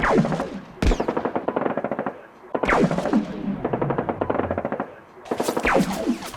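Three long bursts of rapid automatic gunfire, the shots evenly spaced, each burst with a falling tone running through it.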